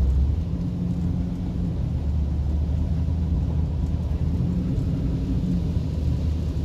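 Car engine and tyres heard from inside the cabin as a steady low rumble, the car driving through standing floodwater.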